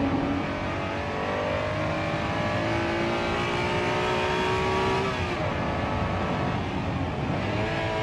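Honda NSX-R's mid-mounted V6 heard from inside the cabin, revs climbing steadily under full throttle for about five seconds. The revs then fall sharply as the throttle comes off, and climb again near the end.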